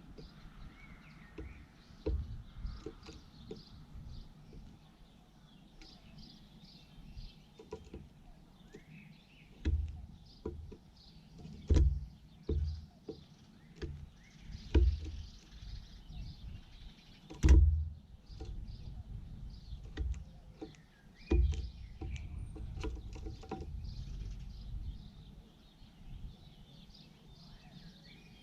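Irregular low thumps and knocks, the loudest about a dozen seconds in and again several seconds later, over a faint rumble, with faint bird chirps in the background.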